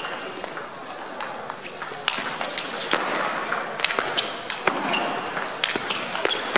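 Table tennis rally: the ball clicking sharply off the rackets and table in quick, irregular succession, with background chatter from people in the hall.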